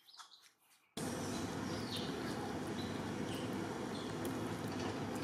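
Steady outdoor background noise that starts abruptly about a second in, with a few faint high chirps over it.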